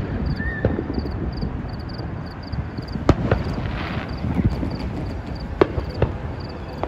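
Aerial fireworks bursting in the distance: scattered sharp bangs over a low background rumble, the loudest about three seconds in and two more just before and after six seconds.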